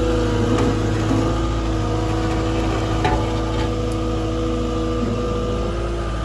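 An engine running steadily with a low drone, holding an even pitch.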